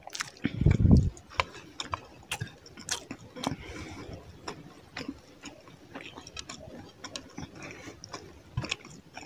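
Close-miked chewing of a handful of rice and fish curry, with many irregular wet mouth clicks. The loudest sound is a low mouth noise about a second in, as the mouthful goes in.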